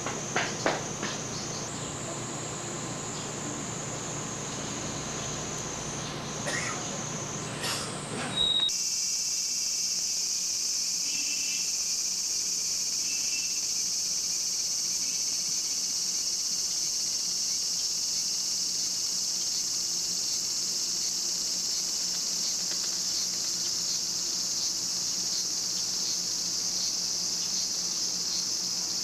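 Kaempfer cicadas (niinii-zemi) buzzing in a steady, high-pitched drone. About eight seconds in the drone jumps to a louder, fuller buzz. There are a few short knocks in the first second.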